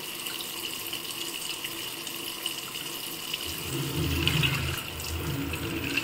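Jet spray of an LG T80SJBK1Z top-load fully automatic washing machine pouring a steady hissing stream of water into the tub. The spray has no motor and is driven by tap water pressure alone. About three and a half seconds in, a low churning joins as the wash action turns the clothes in the water.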